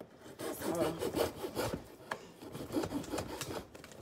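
Cardboard shipping box being scraped and rubbed as it is worked open at the top, in irregular scraping strokes.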